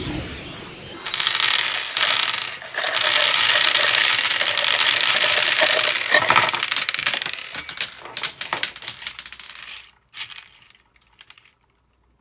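Dozens of small plastic balls pouring out of a plastic bottle onto a hard tabletop: a dense rattling clatter as they hit and roll. Near the end it thins to scattered single clicks as the last balls bounce and settle.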